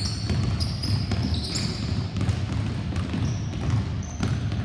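Basketballs bouncing on a hardwood gym floor in irregular thuds, with short high squeaks of sneakers on the court, over a steady low rumble.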